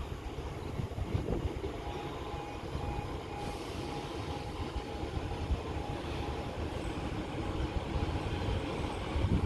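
Train running past with a steady rumble, and a faint pulsing tone in the middle stretch.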